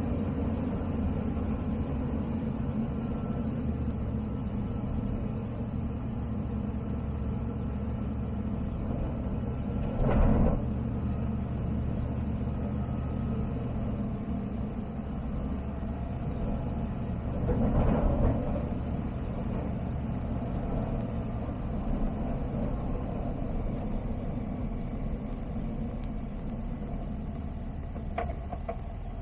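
Steady drone of a Zenith CH 701 STOL's ZD C100 engine, a Rotax 912ULS clone, and its propeller, heard through the cockpit intercom during the approach and landing. Two brief louder swells come about ten seconds in and again around eighteen seconds in.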